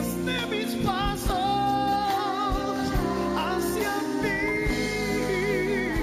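A man singing long, wavering notes with vibrato into a microphone, backed by a band with drums.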